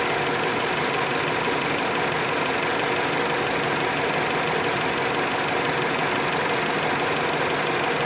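A 2011 Dodge Avenger's 2.4-litre four-cylinder engine idling steadily under the open hood.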